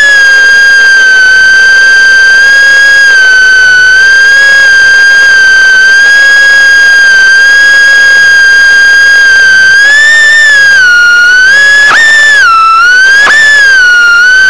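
Small remote-controlled drone's motors whining loudly at a steady high pitch. Near the end the pitch wavers and jumps twice as the throttle changes, then the whine cuts off suddenly as the drone sets down.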